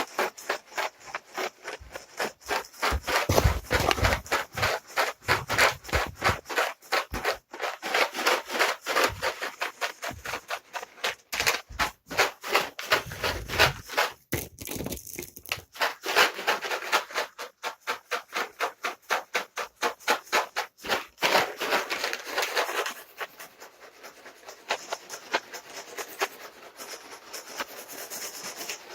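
A container of dry cat treats shaken back and forth, the treats rattling at about four shakes a second. The shaking turns lighter about three quarters of the way through.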